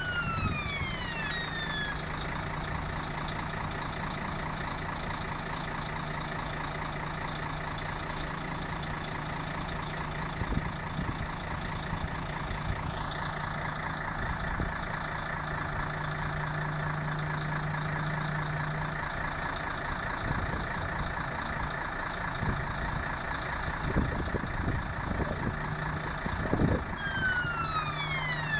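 Container gantry crane at work: a steady machine hum, with a higher whine coming in about halfway through as the spreader is lowered. A repeating falling warning tone sounds at the start and again near the end, and there are a few clunks shortly before it.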